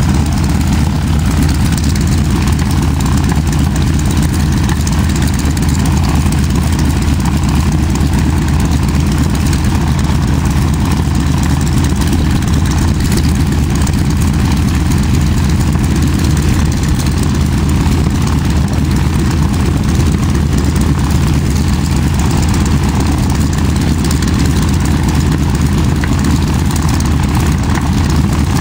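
Air Tractor crop-duster's engine idling steadily on the ground before take-off, a constant low-pitched drone that does not change.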